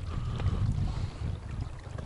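Low, steady rumble of an amphibious all-terrain vehicle's starter motor cranking in gear on a portable jump starter's power, turning the tyres so that they paddle the vehicle slowly through the water.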